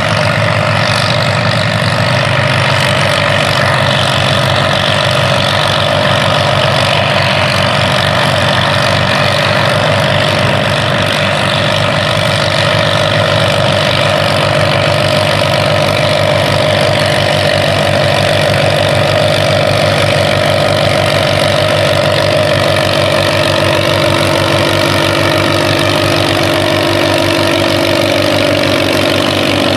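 Farmall 400 and Farmall M tandem tractor, its two four-cylinder engines running steadily under load while pulling a plow.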